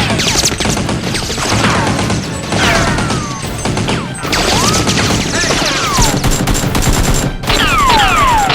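Sustained rapid gunfire, many shots in quick succession as in a firefight, with several falling whines over it like passing rounds or ricochets. The gunfire is dubbed in as sound effects over a Nerf blaster battle.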